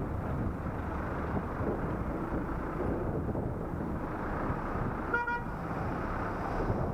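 Steady wind and road noise on a helmet-mounted camera's microphone during a ride, with one short vehicle horn beep about five seconds in.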